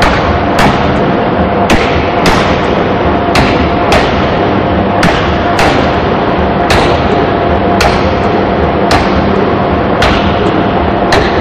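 Forging hammer striking a red-hot anchor chain link: about a dozen heavy blows roughly a second apart, over the steady loud running noise of the machine.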